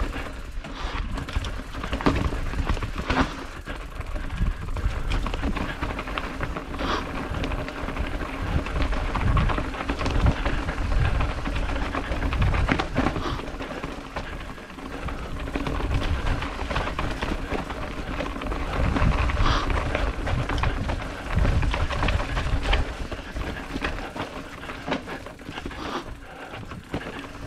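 Mountain bike riding down a rough, rocky trail: tyres crunching over rock and dirt and the bike rattling with many irregular knocks. Wind buffets the camera microphone with a heavy rumble.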